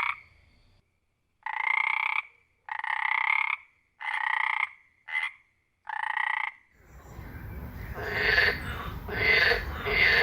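Frogs croaking: about five separate calls, each under a second long with a slightly rising tone, with silence between them. About two-thirds of the way in, a different recording takes over, with a steady background hiss and repeated croaks about once a second.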